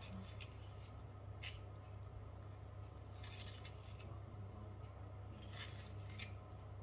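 Faint, scattered short scrapes and clicks of kitchen utensils at work, over a steady low hum.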